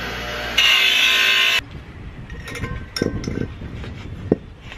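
Bench grinder motor running, with the painted steel helmet pressed against its wheel for about a second, grinding off paint. The grinding stops abruptly, followed by soft cloth rubbing on the helmet and a few light clinks.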